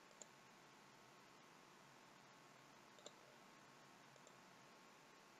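Near silence broken by two faint computer mouse clicks, one just after the start and another about three seconds in.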